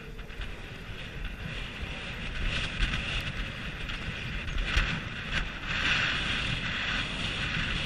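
Wind rushing over the microphone of a rider-mounted camera on a moving horse, getting louder from about a third of the way in as the horse comes out of the indoor arena into the open.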